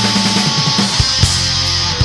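Black metal from a 1993 demo recording: distorted electric guitar and bass over drums, with a couple of sharp drum hits about a second in.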